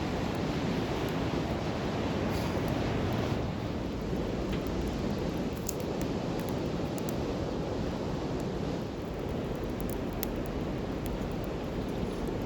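Steady rushing wind noise on the microphone, with a few faint sharp crackles from a campfire.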